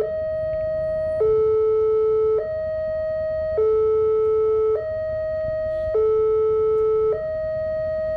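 Railway level crossing warning alarm sounding a steady two-tone signal, alternating between a higher and a lower electronic note, each held for just over a second, warning that a train is approaching and the barrier is down.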